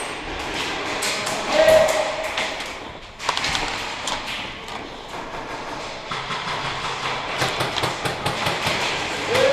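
Airsoft guns firing during a close-quarters game: a rapid scatter of sharp pops and BB impacts, thickest in the second half.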